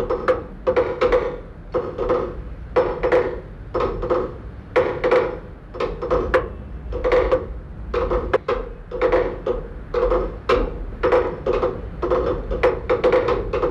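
Rhythmic percussive ticking and knocking: a hollow, pitched knock about once a second, with sharp quick clicks in between.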